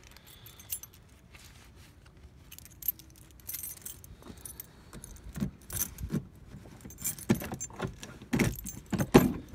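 A bunch of keys jangling in hand as a key is worked into a pickup truck's door lock, with clicks and a few heavier clunks from the lock and door handle, loudest near the end.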